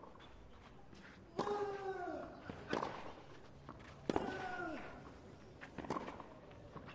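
Tennis rally on a clay court: four racket strikes on the ball, about a second and a half apart. Two of them come with a short grunt from the player that falls in pitch.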